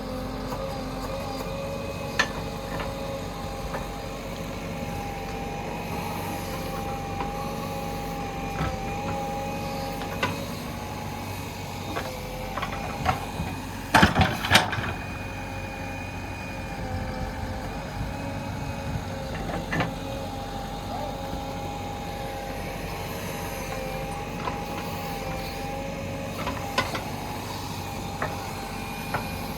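JCB 3DX backhoe loader running steadily while digging, a constant hum with a steady higher tone over it, broken by occasional sharp knocks, the loudest a quick pair about 14 seconds in.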